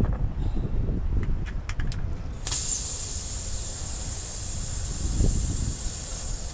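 Pressurised air hissing steadily during a tire puncture repair, starting suddenly about two and a half seconds in after a few light clicks and taps of tool work.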